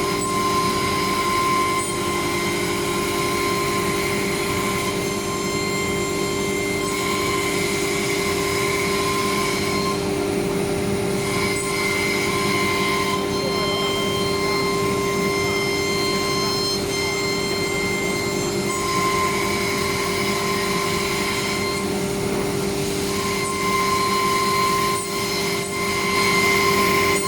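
Woodworking CNC router running, with a steady whine and higher tones that come and go every few seconds.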